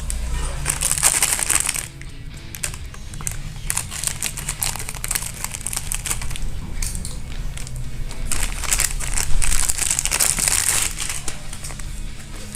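Plastic sweet packaging crinkling and crackling in irregular handling as a box of soan papdi is opened, with steady background music underneath.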